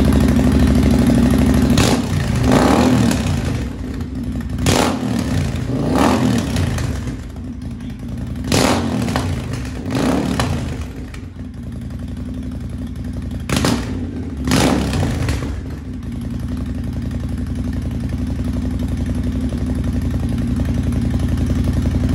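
Triumph Speed Twin 1200's parallel-twin engine, running through an aftermarket Motone Nautilus exhaust with the baffles removed. It idles, is blipped up in revs several times between about 2 and 15 seconds in, dropping back to idle after each blip, then idles steadily.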